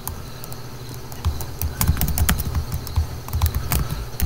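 Typing on a computer keyboard: an irregular run of key clicks starting about a second in.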